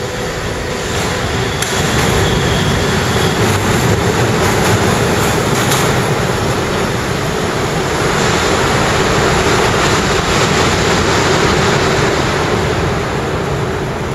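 Wuppertal Schwebebahn suspension-railway car running on its overhead steel track: a loud steady rumble of steel wheels with a hum running through it. The rumble builds over the first two seconds and eases off near the end.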